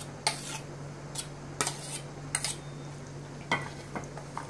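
A metal spoon scraping and clinking against a steel bowl, about half a dozen short strokes, as thick white sauce is scooped out onto chopped vegetables. A steady low hum runs underneath.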